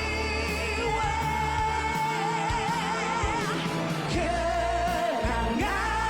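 Malay pop ballad: a singer holds long notes with wide vibrato over band backing with a steady bass line.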